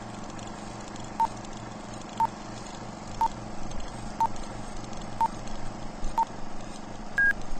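Film-leader countdown beeps: six short, identical beeps, one a second, then a single higher-pitched beep near the end, over a steady hiss and hum like old film running through a projector.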